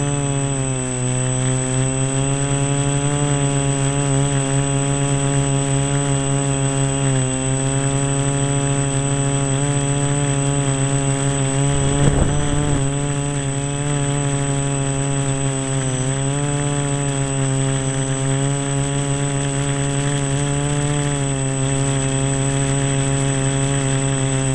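Quadcopter drone's four electric motors and propellers buzzing steadily in flight, the pitch wavering slightly as the motors adjust speed. About halfway through, a brief rush of noise rises over the buzz.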